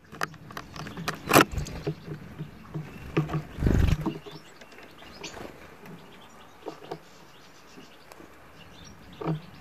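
European goldfinches at a seed feeder: irregular clicks, knocks and rustles as the birds pick at and shift the sunflower seeds, with a second goldfinch fluttering in to land. The knocks are busiest in the first four seconds, then only a few scattered clicks follow.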